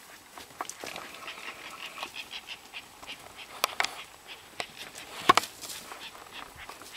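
Impala rams in the rut chasing each other: a series of animal calls, with scattered sharp knocks and clicks, the loudest about five seconds in.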